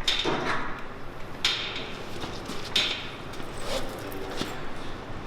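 Scattered sharp knocks and clanks of hand work on metal parts, about five over a few seconds, each ringing briefly.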